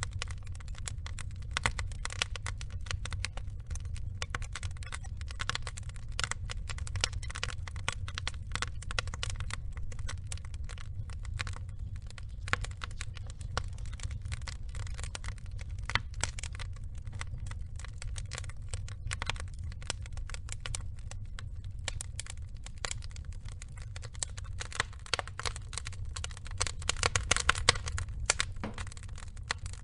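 Burning wood logs crackling and popping in a dense, irregular patter over a low steady rumble, with a burst of louder pops near the end.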